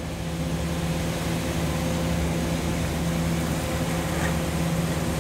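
Foundry sand mixer running: its electric motor and screw conveyor make a steady hum over a hiss of noise while it feeds moulding sand.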